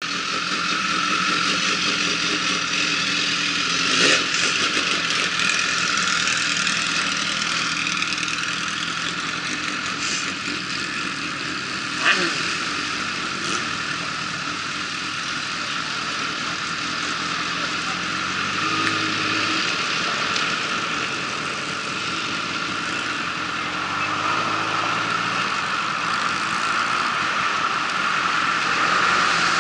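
Motorcycle engines idling and pulling away, heard through a camera mounted on a bike, with two sharp knocks about 4 and 12 seconds in and short changes in engine pitch a little before and after 20 seconds.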